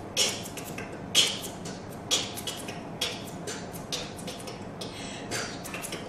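Stifled, breathy giggling: short irregular huffs of breath coming in clusters, with no voiced laughter.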